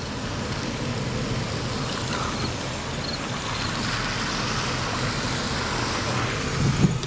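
Car driving slowly, heard from inside the cabin: a steady low engine and road hum under tyre hiss on wet pavement that swells a little midway, with a brief low thump near the end.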